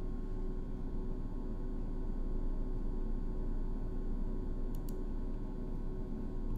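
Steady low electrical hum and room noise from the recording setup, with a faint sharp double click about five seconds in.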